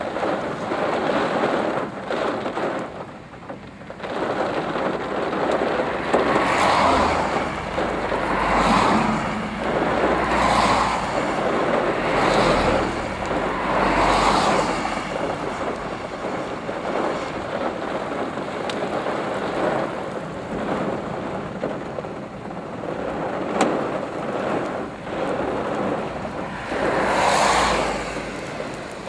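Heavy storm rain and wind beating on a car, swelling in surges every couple of seconds with a low rumble under the loudest ones.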